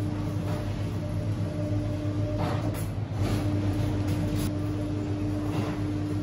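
Steady machine hum with a held low tone, which drops out for a moment about halfway through, and a few faint knocks or clatters over it.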